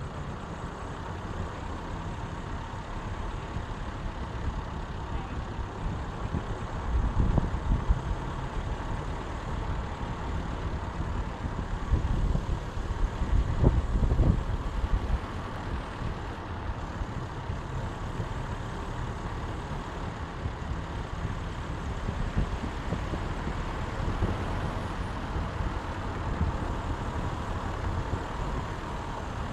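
Steady running noise of a slow-moving vehicle, with engine and tyre rumble on the road, swelling louder in the low end twice, about seven seconds in and again around twelve to fifteen seconds.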